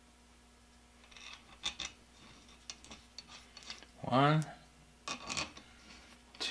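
Steel lathe-chuck parts, screws and hand tools clinking and tapping as they are picked up and set down on a workbench, a scatter of short metallic clicks. A brief voiced sound from the man about four seconds in.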